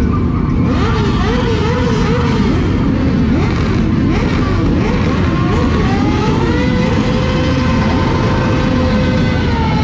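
Many motorcycle engines running together and being revved, their pitch rising and falling over one another. About six seconds in, one engine is held at a high, steady pitch for a few seconds.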